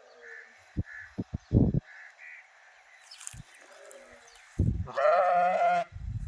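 A sheep bleats once, a loud call lasting about a second that starts about five seconds in. A few dull low knocks come about a second in.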